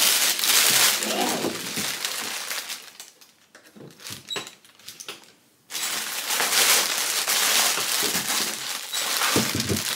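Plastic bag crinkling and rustling as it is pulled off a heavy power amplifier. It dies down for a couple of seconds around the middle, then starts again suddenly.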